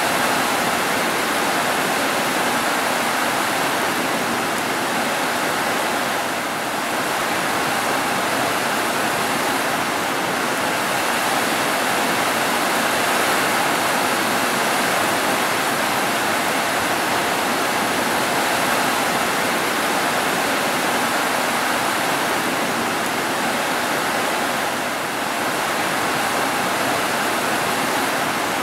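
Heavy rain falling steadily on roofs: a dense, even hiss of rainfall with no thunder, easing very slightly twice for a moment.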